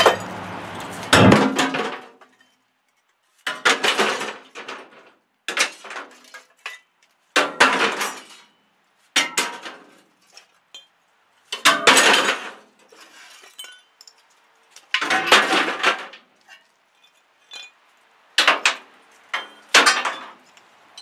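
A run of short clinking, clattering bursts of hard objects striking, about nine in all, each under a second, with brief silent gaps between them.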